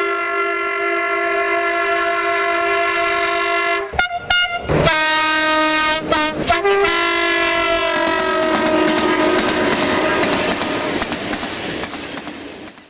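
Horns of Romanian 060-DA (LDE2100) diesel-electric freight locomotives, sounded as multi-tone chords: one long blast, a short blast after an abrupt cut about four seconds in, then after another cut near six seconds a longer blast that fades under the rushing and wheel clatter of a passing freight train.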